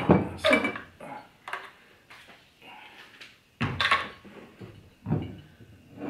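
Plastic brewing bucket and glass jug being moved about on a wooden bench: a series of clunks and knocks, the loudest at the start and about three and a half seconds in, as the bucket is lifted up onto another bucket.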